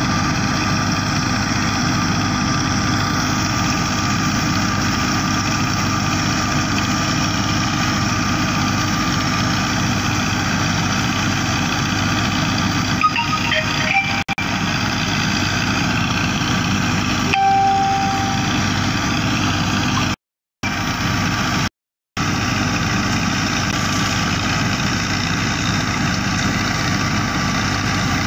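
Fiat 640 tractor's four-cylinder diesel engine running steadily at working speed, a loud even drone. A short high steady tone sounds for about a second past the middle, and the sound cuts out briefly twice soon after.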